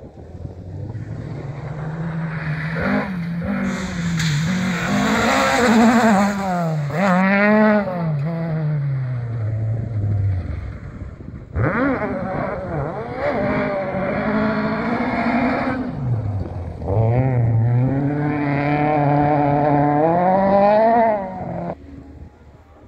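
Rally car engine at full throttle, the pitch climbing through each gear and falling back at every shift and lift-off. The sound cuts in sharply twice, about halfway through and again about two-thirds through.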